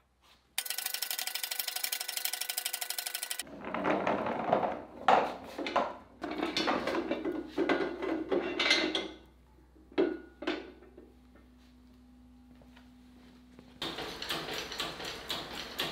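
Ratchet strap being cranked tight, with rapid, even clicking for about three seconds. Then steel axle stands clatter and knock as they are set and adjusted under a ladder frame, and near the end an engine crane's hydraulic pump handle is worked with an even, repeating rasp.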